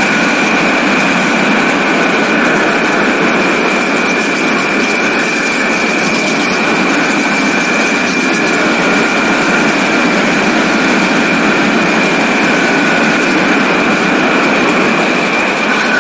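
BMW R1200GS motorcycle riding steadily along a road, heard as a loud, even rush of wind and road noise on a bike-mounted camera's microphone, with a steady high whistle over it.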